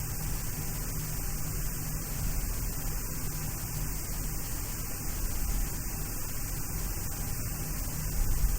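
Steady hum and hiss of a Boeing 737-800 cockpit on the ground, with the engines running at idle before the takeoff roll.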